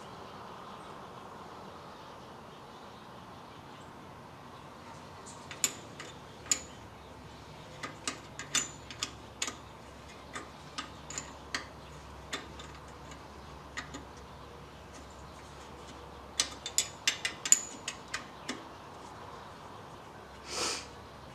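Irregular light clicks and taps of hand tools and brake-bleeding gear being handled, over a faint steady hum, with a short hiss near the end.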